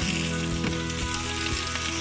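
Asparagus sizzling steadily as it fries in a pan, with background music playing over it.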